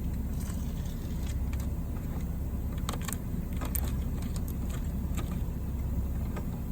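A steady low rumble, with scattered light clicks and small metallic rattles from the tire plug kit's tools and repair strips being handled, the most clustered near the middle.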